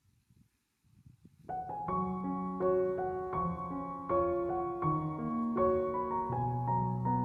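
Background piano music begins about a second and a half in, a gentle melody over sustained bass notes, after faint low rustling.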